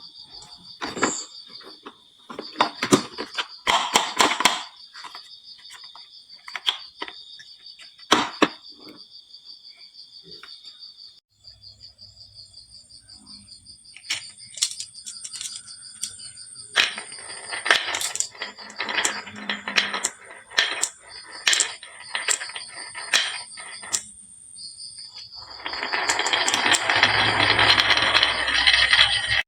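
Marbles clicking and knocking as they run down a wooden marble-run slope, scattered single clicks that build into a dense clattering rush of many marbles near the end. A steady, high-pitched pulsing chirr sounds in the background for most of the time.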